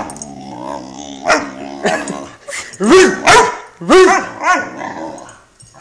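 An 11-week-old Great Dane puppy grumbling low, then barking about half a dozen sharp barks that rise and fall in pitch, in a protesting temper tantrum; the barks die away near the end.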